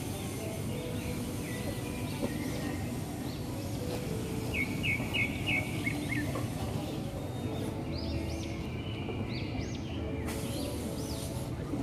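Steady low urban background rumble with small birds chirping over it: a quick run of about five chirps about halfway through, and several rising-and-falling chirps near the end.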